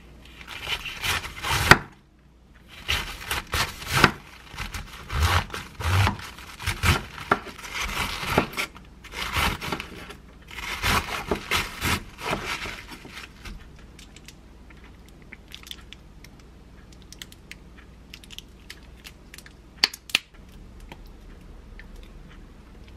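A kitchen knife shredding a wedge of raw cabbage on a wooden cutting board: quick, crisp crunching cuts in runs for about thirteen seconds. After that only scattered light clicks and taps, with one sharper click near the end.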